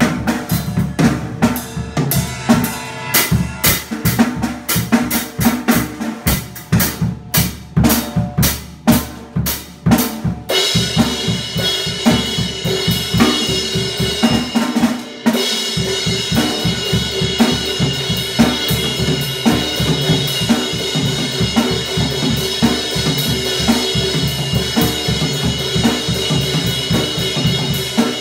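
A Yamaha drum kit being played, bass drum and snare thumping in an uneven beat. About ten seconds in, a steady ringing cymbal wash comes in under the drumming and keeps going.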